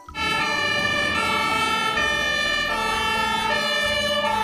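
German fire engine's two-tone siren, stepping back and forth between a high and a low note, each held for under a second.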